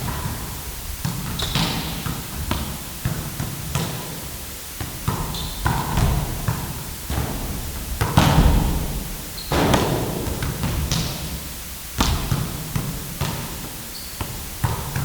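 Indoor basketball practice: balls bouncing and thudding on a gym court at irregular intervals, with short high sneaker squeaks on the floor every few seconds.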